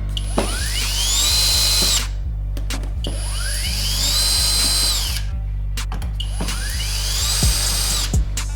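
Electronic background music: a steady bass under a whirring sweep that rises in pitch and then holds high, repeating three times about three seconds apart, with drum hits coming in near the end.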